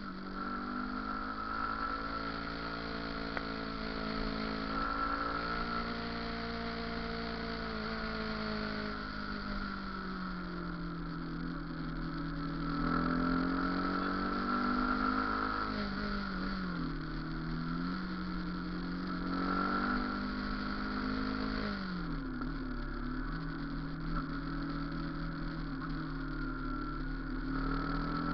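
Motorcycle engine running under way, its pitch rising and falling as the throttle opens and closes, with a steady higher whine alongside.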